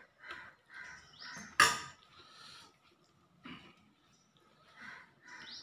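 A spoon clinking and scraping in a steel bowl as kuzhambu is served, with one sharp clatter about one and a half seconds in. Near the end a bird starts chirping, quick rising notes a few times a second.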